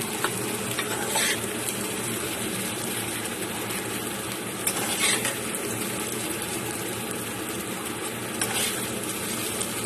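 Potato and bitter gourd curry sizzling steadily in a hot kadai while a flat metal spatula scrapes it out into a steel bowl, with three brief scrapes of the spatula against the metal.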